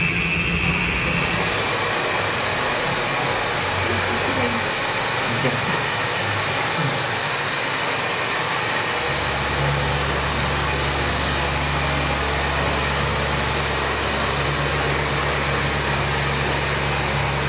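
Steady machine-like rushing noise. A low, even hum joins it about nine seconds in.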